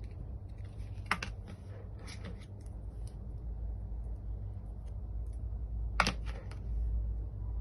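Light clicks and taps of a smartphone and its packaging being handled, with two sharper clicks about a second in and near the end, over a low steady hum.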